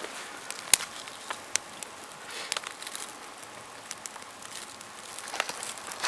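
Small dry twigs of a kindling teepee crackling as they catch fire: scattered sharp snaps over a soft hiss, the loudest about a second in.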